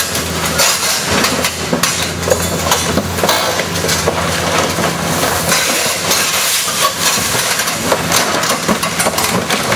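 Tracked excavator's diesel engine running steadily as its steel track rolls onto an old sedan's roof, crushing it with repeated crunches and cracks of bending sheet metal.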